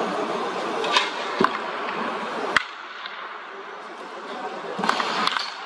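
Sharp cracks of baseball bats hitting balls in the batting cages: three single cracks in the first three seconds, then a few quicker clicks near the end. A steady background din drops away abruptly with the third crack.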